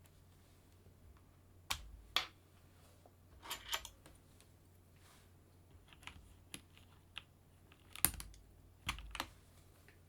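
Keystrokes on a Keychron V3 Max mechanical keyboard with Banana switches: slow, scattered key presses, about a dozen sharp clacks with pauses between them, a few of the later ones heavier and deeper.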